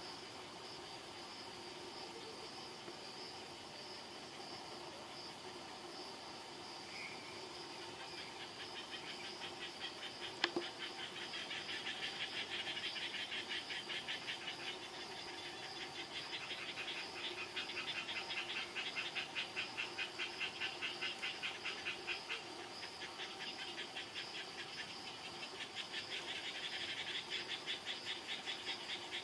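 Insects singing: a steady high ringing, joined about a third of the way in by a louder, fast-pulsing trill that swells and fades several times. A single sharp click about ten seconds in.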